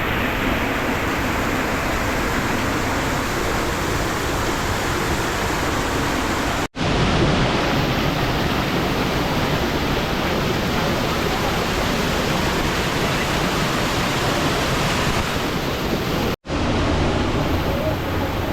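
Waterfall's water rushing steadily, an even noise with no pitch. It cuts out for an instant twice, about seven and sixteen seconds in.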